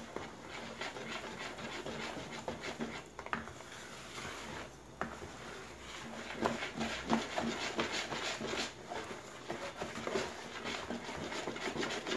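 Wire whisk beating thick cake batter by hand in a plastic bowl: quick, uneven scraping and slapping strokes as the flour is worked into the mixture.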